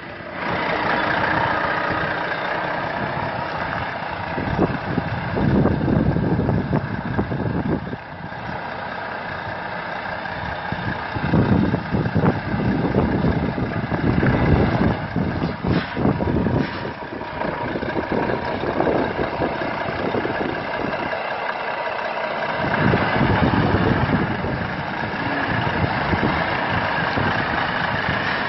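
Milk truck's engine idling, its level rising and falling several times.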